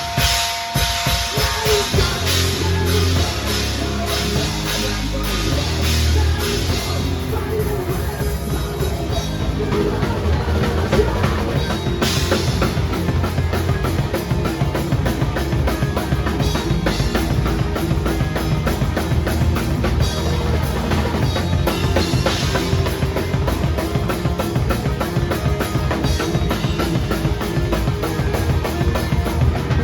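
Drum kit played over a rock backing track: a dense, fast beat of kick drum, snare and cymbals.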